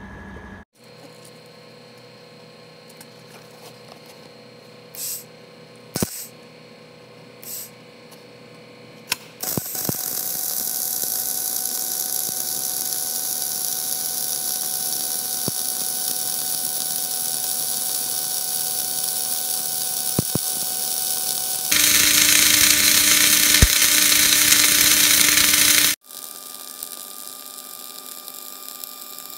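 MIG welding arc on a steel T-joint: it strikes about nine seconds in and runs as a steady sizzling hiss, louder for about four seconds near the end, then cuts off sharply, leaving a low hum.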